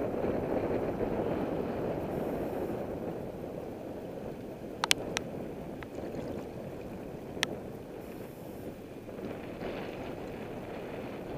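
Choppy seawater lapping and sloshing at the surface around a low-held camera, muffled, with wind. A few sharp clicks sound around the middle.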